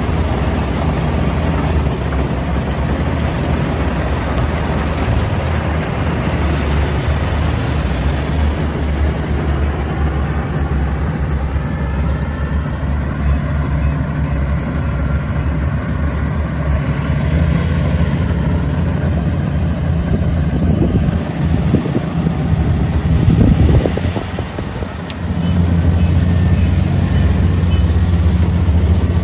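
Diesel engine of a Kubota rice combine harvester running steadily under load while it cuts the crop, a deep continuous drone. The sound dips briefly about three-quarters of the way through and then comes back louder.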